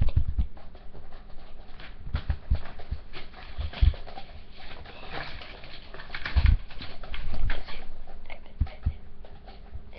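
Window blinds rustling and rattling, with irregular soft knocks and bumps, as they are pushed aside by hand around a dog lying in them.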